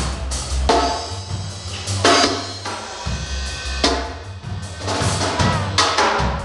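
Live band playing at a sound check: a drum kit with kick, snare and cymbal crashes roughly every one to two seconds over a bass line of low, stepping notes.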